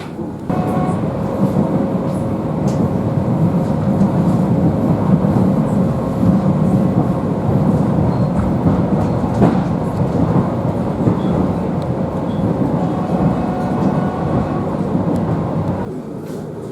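Electric commuter train running between stations: a dense rumble of wheels and carriage with a faint steady whine. It grows suddenly louder about half a second in and drops back near the end.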